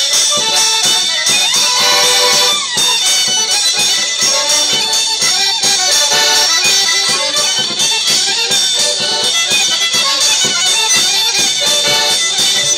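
Live traditional folk trio playing a dance tune: fiddle and piano accordion carry the melody over a large bass drum beaten in a steady rhythm.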